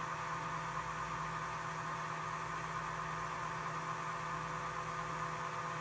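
Steady electrical hum with several faint, unchanging tones and no other events.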